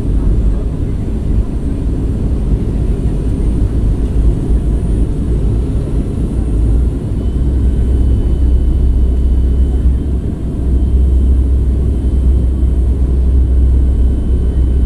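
Steady low rumble inside a jet airliner's cabin in flight: engine and airflow noise.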